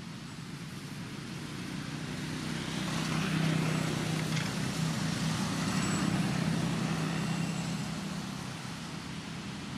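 Engine hum of a passing motor vehicle. It swells from about two seconds in, is loudest through the middle and fades somewhat near the end.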